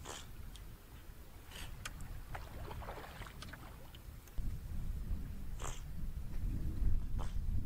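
Canoe paddle strokes making short splashes of water, a second or more apart. A low rumble comes in about four seconds in.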